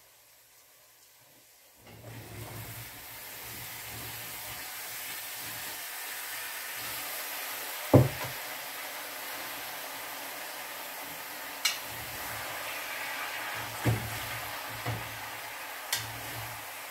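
Cut potatoes hitting hot oil in a pot of frying onion and carrot: a steady sizzle that comes up about two seconds in and holds. There is one sharp knock near the middle and a few lighter clicks of a metal spoon against the pot as the potatoes are stirred.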